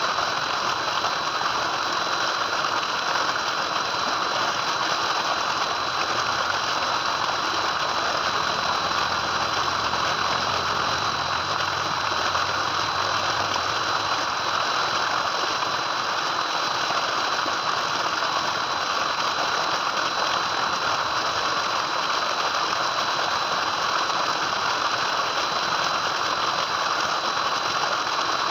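Tubewell water gushing steadily from an outlet pipe and pouring into a concrete tank, a constant rushing splash with a thin, steady high whine alongside it.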